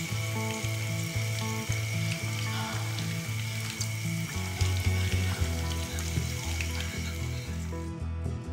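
Hot oil sizzling and crackling as breaded corn dogs on skewers deep-fry in a pan, over background music with a steady repeating bass line. The sizzling cuts off near the end.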